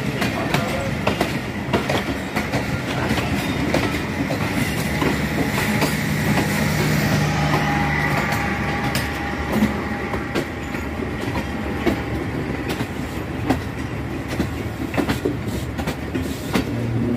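Passenger train running along the track, its wheels clattering over the rail joints with a steady rumble and a dense run of clicks.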